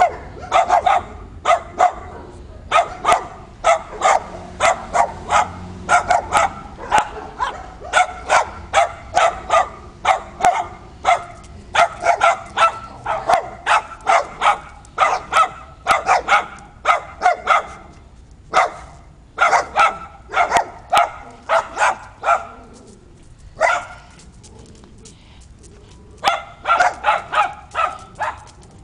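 Dogs barking in rapid volleys of short, sharp barks, two or three a second, broken by a few pauses past the middle.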